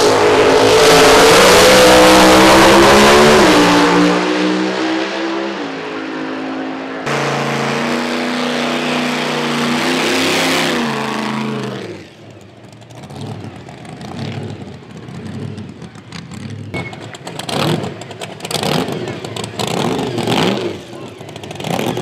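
JCB GT backhoe dragster's Chevrolet V8 running hard and loud, its pitch falling away as it passes, twice over. About halfway through it drops to quieter, uneven revving in short surges.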